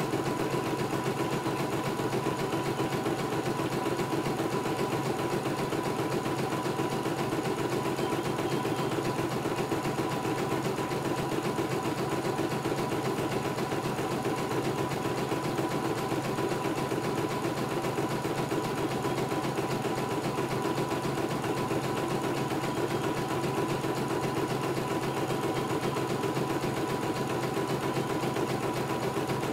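CNY E900 computerized embroidery machine stitching a design: the needle runs at a fast, even rate over a steady motor hum, without a break.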